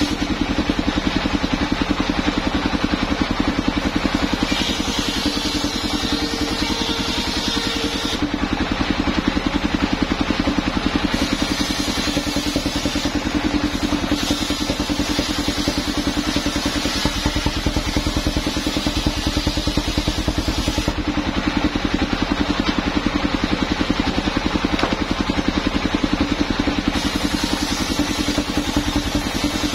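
Engine of a home-built mobile circular sawmill running steadily, driving the saw blade, with an even rapid pulse that holds throughout.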